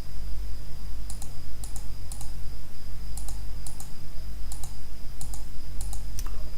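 About a dozen short, irregular clicks from a computer mouse and keyboard as text spacing is adjusted in CNC design software, over a steady low electrical hum and a faint high whine on the recording.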